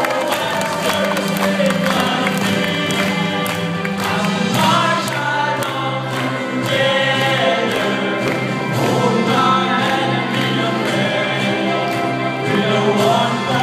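A choir singing a hymn in parts, steadily and without a break.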